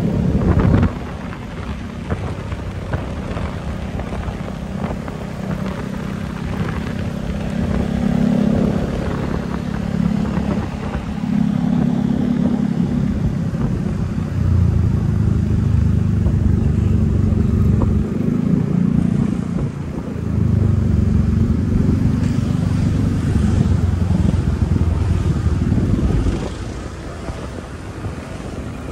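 Motor scooter engine running under way, heard from the rider's seat, with road and wind noise. The low engine note swells and eases several times and drops back near the end.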